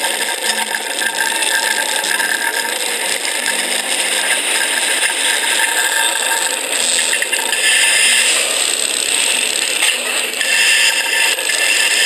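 Roller coaster ride audio of the Mr. Freeze coaster played back through a small phone speaker: a steady, tinny mechanical rattle and clatter of the coaster train with no bass, a little louder near the end.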